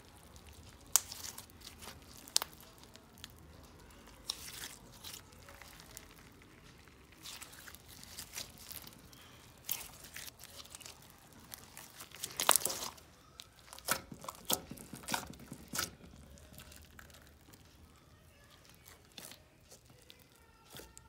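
Clear slime with purple glitter being stretched, squeezed and kneaded by hand, giving irregular sticky crackles and pops, with a loud cluster of pops a little past halfway.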